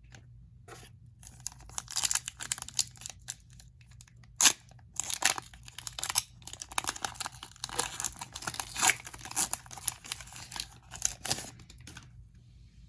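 Foil wrapper of a hockey card pack being torn open and crinkled: a dense run of crackling from about a second in until near the end, with one sharper snap about four and a half seconds in.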